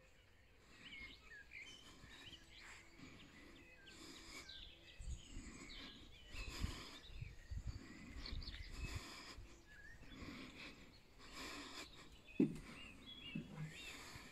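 Garden birds chirping and singing, many short quick calls, with low thuds and rustle from someone walking while filming, and a sharp knock about twelve seconds in.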